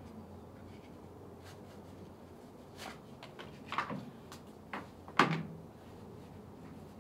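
Footsteps of flat shoes on wooden decking: a few scattered taps and knocks, the loudest about five seconds in.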